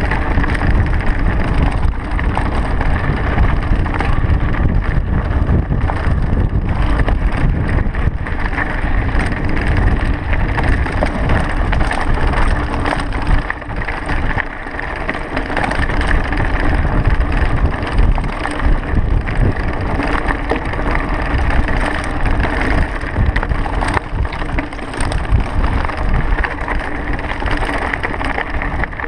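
Mountain bike riding down a rocky dirt trail, heard from a camera on the handlebars: wind buffeting the microphone over tyres crunching on gravel and the bike rattling and knocking over stones.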